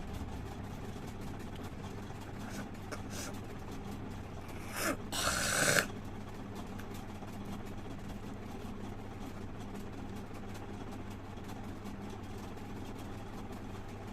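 A person spitting forcefully once, a loud breathy burst about five seconds in lasting under a second, over a steady low mechanical hum.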